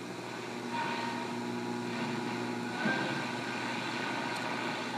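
Airline 62-361 tube radio's speaker between AM stations as the dial is turned: steady hiss and hum, with a short whistle about a second in and a higher one near the middle.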